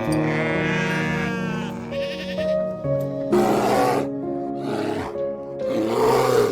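Soft instrumental music with an animal calling over it: one wavering call in the first two seconds, then three short, breathy calls.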